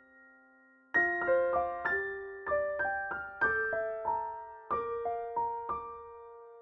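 Background music: a soft electric piano playing a gentle melody of single notes and chords, each note struck and left to fade.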